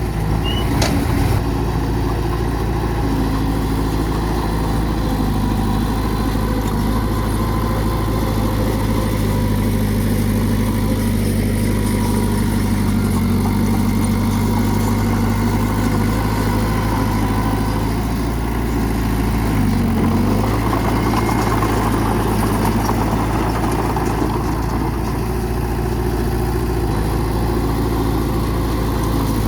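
Heavy earthmoving machine's diesel engine running steadily, its note dipping briefly under load twice, near the middle and about two-thirds through. A couple of sharp clicks in the first second.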